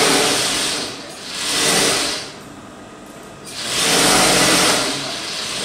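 Brother industrial sewing machine stitching in three short runs, each swelling up and falling away: one ending about a second in, a shorter one just after, and a longer one past the middle. A weaker run follows near the end.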